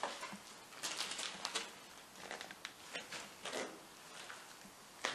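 Footsteps crunching and scuffing irregularly on a floor strewn with rubble and debris, with some rustling.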